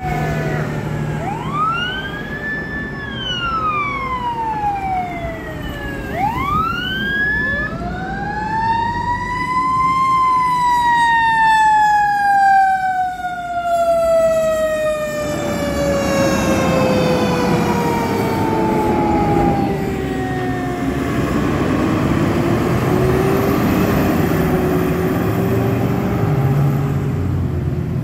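Fire truck siren wailing, rising and falling several times and then winding down in one long slow fall. Under it are the diesel engine and road noise of the fire apparatus driving past.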